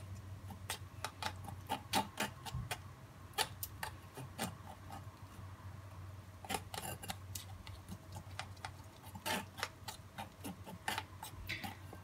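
Wooden spoon pressing grated tomato pulp through a stainless steel mesh strainer, making irregular light clicks and scrapes against the mesh, over a faint steady low hum.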